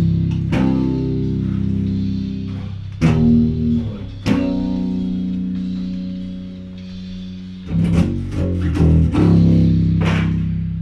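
Electric bass guitar being tracked: a few picked low notes, some left to ring for several seconds, with a quick run of notes near the end.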